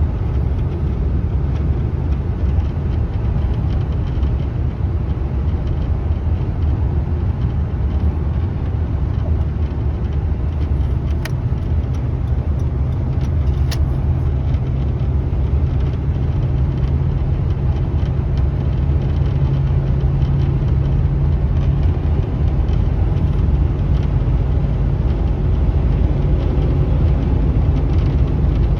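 A vehicle driving: a steady low rumble of engine and road noise, with a few faint clicks about halfway through.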